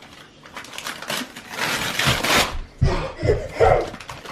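Wrapping paper tearing and crinkling as a present is unwrapped, loudest for about a second in the middle, followed by a few handling thumps near the end.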